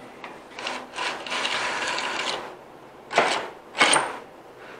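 Rusty brake and rear-axle parts of a 1941 Allis-Chalmers C scraping and grinding as a brake is worked by hand: one long scrape about a second in, then two short ones. The brake grabs.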